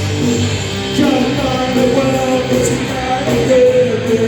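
Live punk band playing loud, with electric guitar and a wavering melodic line, sung or played, coming in over it about a second in.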